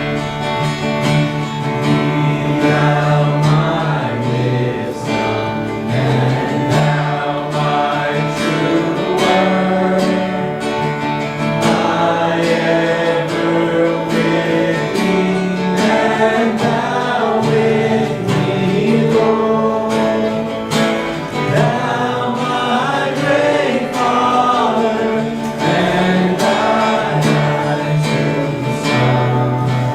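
Worship band playing a closing song: acoustic guitar strumming with singing voices.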